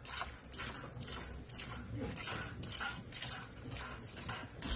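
Cow being milked by hand: squirts of milk hitting a plastic bucket in a steady rhythm, about two a second.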